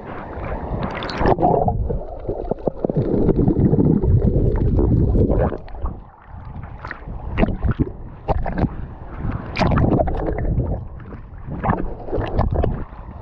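Sea water sloshing and splashing against a GoPro held at the surface, sounding muffled and gurgling as the camera bobs under. There is a dense low wash for the first few seconds, then a run of short, sharp splashes and drips.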